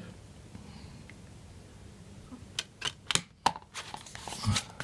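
A Blu-ray disc clicked back onto the hub of a digipak's clear plastic tray, with card panels being handled. After a quiet start comes a quick run of sharp plastic clicks, about half a dozen in just over a second.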